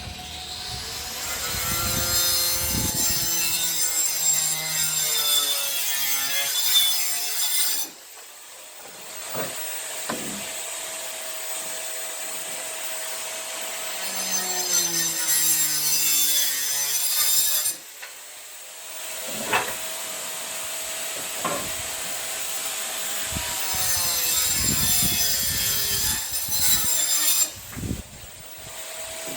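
Power saw cutting through wood in three long cuts, the motor's whine dropping in pitch under load and each cut ending abruptly as the blade breaks through. Between the cuts the saw runs freely with a steady hum.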